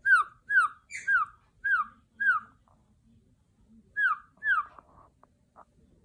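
Chattering lory, a red parrot, giving short whining calls that each slide downward in pitch: five in quick succession, a pause, then two more.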